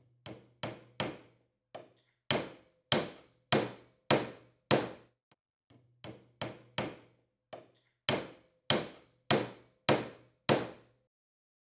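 Hammer driving nails into wood. Each nail takes a few light taps, then about five hard blows, roughly one every 0.6 seconds. This happens twice, with a short pause between the two nails, and each blow rings briefly.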